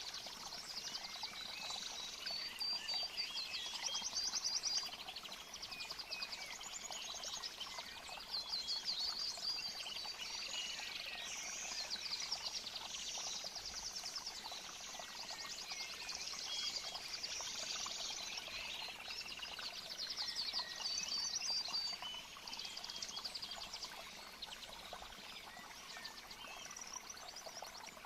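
Nature ambience of birds chirping and trilling continuously over a steady hiss of flowing water.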